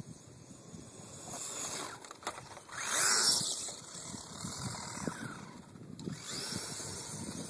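Electric motor and drivetrain of a 1/16 Traxxas Summit VXL RC truck whining as it speeds past close by, loudest about three seconds in, the pitch rising and falling as it passes; it whines past again near the end.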